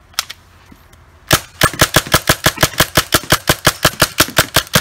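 Tacamo Bolt G36 paintball marker firing from its magazine. A single click just after the start, then, about a second later, a fast, even string of sharp shots at roughly eight a second.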